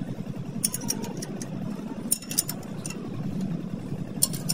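Steel spanner turning the nuts on a truck's rear wheel hub, giving a few short sharp metal clicks and clinks in small clusters, about a second, two seconds and four seconds in, over a steady low engine hum.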